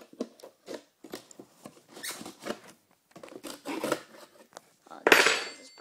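Cardboard box and packaging being handled: scattered rustles, scrapes and small knocks. About five seconds in comes a loud, harsh tear lasting about half a second.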